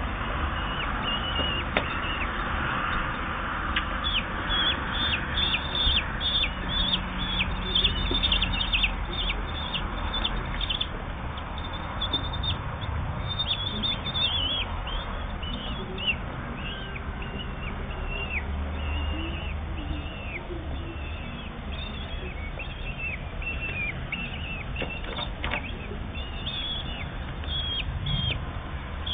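Common kestrel chicks giving many short, high begging calls, each falling in pitch, in quick runs while the female feeds them; a low rumble runs underneath.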